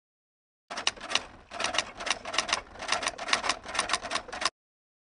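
Typing sound effect: a quick run of key clacks with a brief pause after the first few, stopping shortly before the end.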